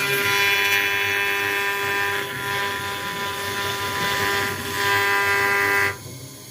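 CNC router spindle with its engraving bit cutting into an acrylic sheet: a steady, high, many-toned whine that swells twice and drops away suddenly near the end.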